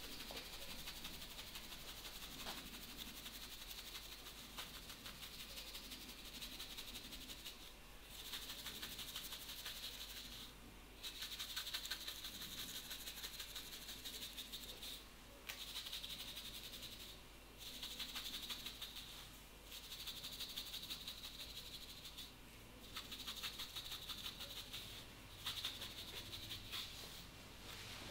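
Fingers scratching and rubbing through hair on the scalp during a head massage: a fast, dense rustle in stretches of a few seconds, broken by short pauses.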